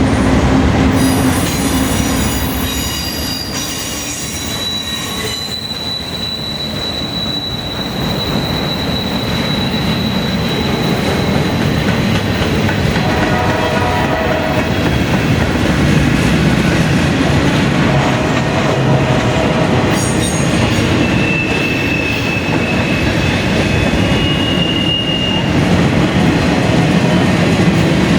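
Norfolk Southern freight train rolling past, its wheels rumbling steadily on the rails. Steel wheels squeal high-pitched against the rail twice, for several seconds from about five seconds in and again for a few seconds past the middle.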